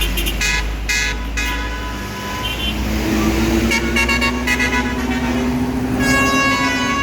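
Tour bus's Basuri musical telolet horn playing a tune: quick short toots in the first second and a half and again midway, then a long held chord near the end. The bus engine's low rumble runs underneath.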